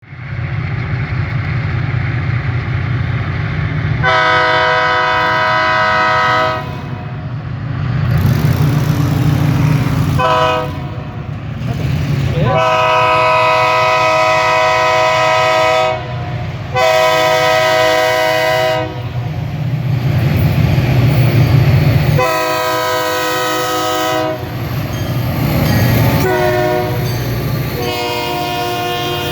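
Diesel locomotive of a Toledo, Peoria & Western grain train sounding its multi-chime air horn in a series of blasts, several long and a few short, over the steady low rumble of the passing train.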